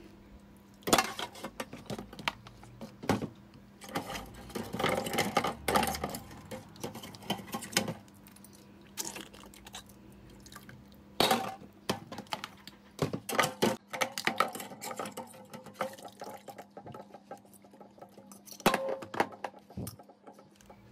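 Metal fork clinking and scraping against a boiled African snail's shell as the meat is prised out, in irregular bursts, with water dripping and splashing into a pot.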